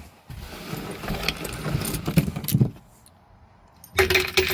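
Loose bolts and hand tools rattling and clinking in a bucket, in two spells: a longer rattle and then, after a short pause near the end, a louder clatter.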